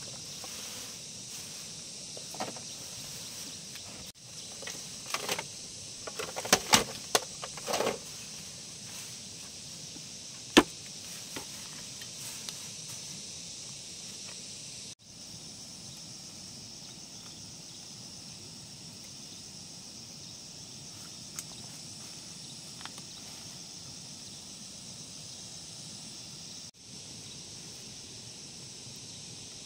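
Dry grass thatch rustling and crackling as it is pushed into a coop roof by hand, in a cluster of crackles a few seconds in and a single sharp snap near the middle, over a steady high hiss of insects.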